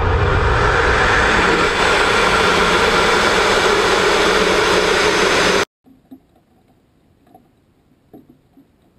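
Rocket motor firing at liftoff, heard from a camera mounted on the rocket: a loud, steady roar that cuts off suddenly about five and a half seconds in. A few faint ticks and rattles follow.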